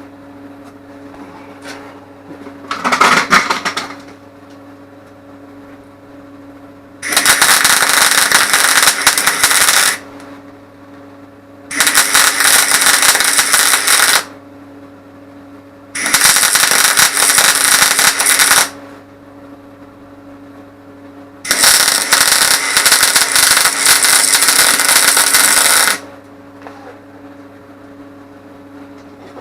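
Welding arc tacking a hinge onto a tractor door's steel skin: a short burst about three seconds in, then four runs of dense, steady crackle, each a few seconds long, that start and stop abruptly. A steady low hum fills the gaps between runs.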